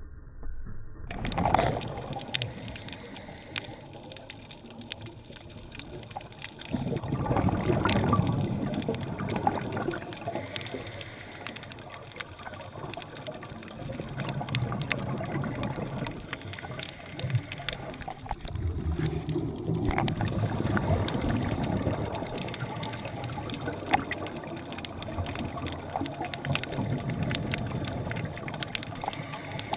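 Scuba diver's breathing heard underwater: exhaled bubbles rush out from the regulator in bursts a few seconds long, with quieter gaps between breaths and a few sharp clicks.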